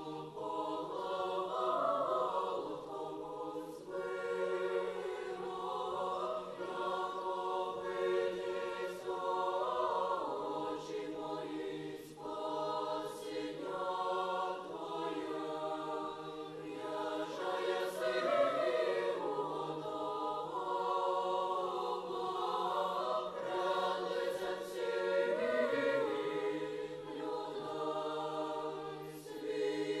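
Children's choir singing together in long, sustained phrases, the voices swelling and moving in pitch as one.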